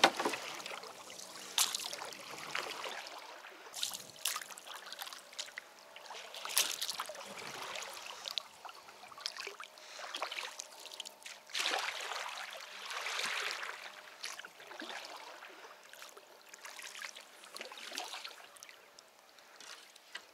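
Kayak being paddled: the paddle blade dipping and pulling through the water with water trickling off it, a stroke every two to three seconds.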